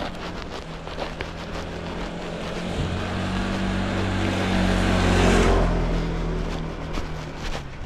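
A motor vehicle passing close by: a low engine hum and rushing noise swell to a peak about five seconds in, then fade away.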